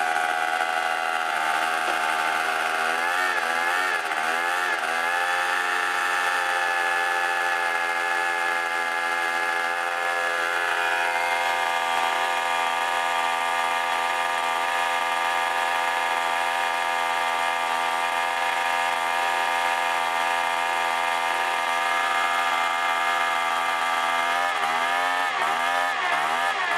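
Yamaha Aerox 50cc scooter's two-stroke engine running on the stand through a Giannelli Extra Chrome expansion-pipe exhaust. It holds a steady pitch, which wobbles up and down briefly about three to five seconds in and again near the end.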